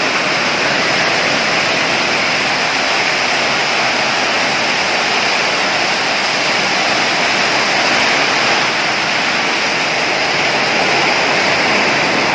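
Heavy rain pouring steadily, drumming on a zinc sheet roof.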